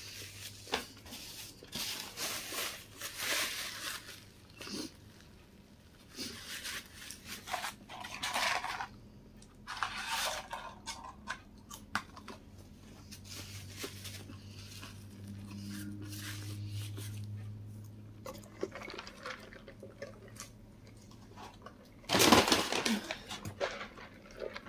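Close-up chewing and crunching on McDonald's chicken nuggets and fries, with small crinkles of paper food packaging. Near the end comes a couple of seconds of loud rustling as a paper takeout bag is handled.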